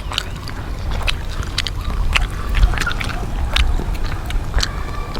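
Crunchy chewing and biting of deep-fried chicken: irregular sharp crunches and mouth clicks, several a second, over a steady low rumble.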